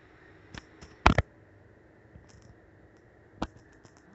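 A few sharp knocks and clicks in a quiet room, the loudest a quick double knock about a second in, with another knock near the end and faint ticks between.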